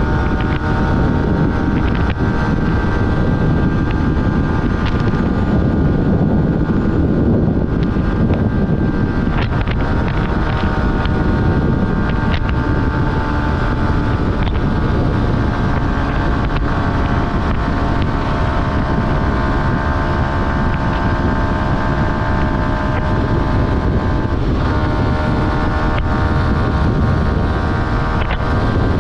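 Yamaha R15's 155 cc single-cylinder engine running steadily at road speed, heard from on the bike with heavy wind noise on the microphone. The engine note breaks briefly about 25 seconds in, then carries on.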